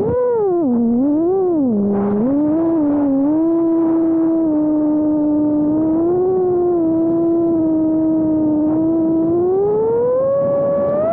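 Brushless motors and three-blade props of a 5-inch FPV freestyle quad (1600kV motors on 6S) whining with throttle. The pitch dips and rises sharply several times in the first few seconds, holds fairly steady through the middle, then climbs near the end.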